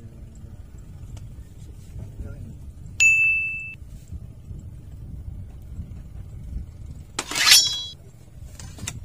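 A small fishing-rod bite bell dings once sharply about three seconds in, the bell's sign of a fish taking the bait. About seven seconds in a rod is swept up in a strike, with a short rising and falling swish mixed with high metallic jingling, the loudest moment.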